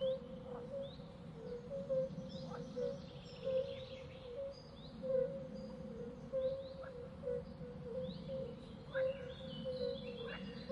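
Small birds chirping and calling, many short chirps overlapping, over a steady background hum and a low note pulsing a few times a second.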